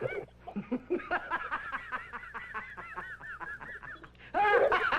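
High-pitched cackling laughter: a rapid run of short, rising-and-falling 'ha' notes, several a second, with a louder outburst of voice near the end.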